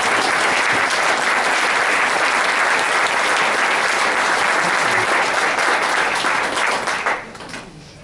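Audience applauding at full strength, then dying away about seven seconds in.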